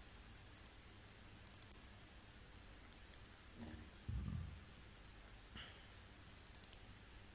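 Computer mouse buttons clicking in a quiet room: single clicks and quick runs of three or four. A soft low thump comes a little past halfway.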